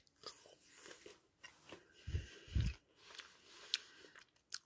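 Quiet handling noises as small gummy candies are picked up by hand from a tabletop. There are scattered faint clicks, two dull low thumps about two seconds in, and a couple of sharp ticks near the end.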